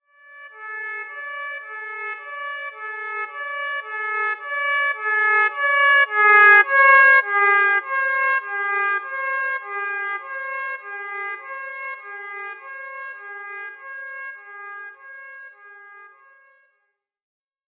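Emergency alert alarm tone: a steady high tone held under pulsed, brassy notes repeating about twice a second. It swells to its loudest about halfway through and fades away near the end.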